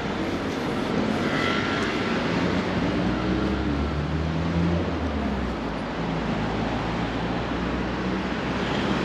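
City street traffic: a steady rush of passing vehicles, with one engine's low hum growing strongest near the middle as it passes close.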